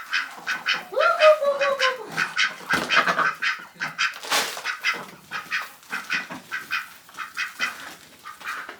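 Ducks quacking in a rapid, continuous chatter, with one longer call about a second in that falls in pitch.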